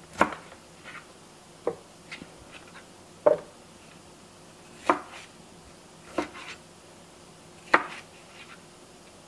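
Kitchen knife cutting a red bell pepper on a plastic cutting board: about six separate knocks, one every second and a half or so.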